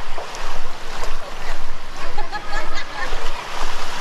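Beach ambience: a steady rush of surf and wind, with faint voices of people in the distance about halfway through.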